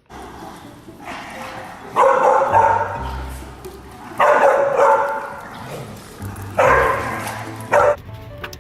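A dog giving three drawn-out barks, each about a second long and evenly spaced a couple of seconds apart.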